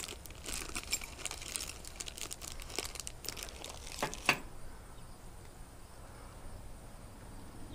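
Clear plastic bag crinkling and rustling as an underspin fishing lure is worked out of it, stopping about four seconds in.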